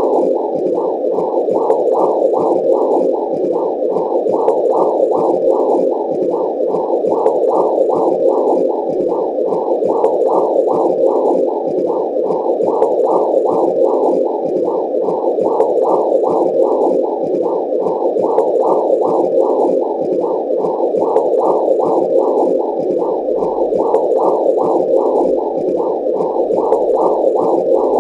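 Womb sound effect: a muffled, whooshing noise that pulses evenly about twice a second.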